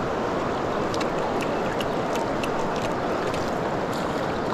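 Shallow river riffle rushing steadily over stones, with a few faint, sharp ticks scattered through it.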